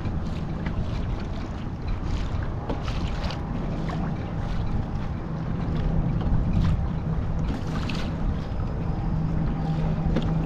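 Wind buffeting the microphone over choppy water lapping and slapping against a kayak hull, with a steady low hum underneath and scattered short splashes.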